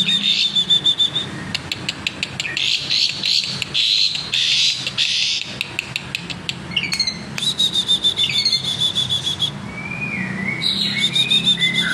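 Asian pied starling singing a varied, chattering song: fast trilled runs of high notes, a stretch of dry rapid clicks, and gliding whistles near the end. This is the bird practising the mimicked phrases ('isian') of other birds that it works into its song. A low steady hum runs underneath.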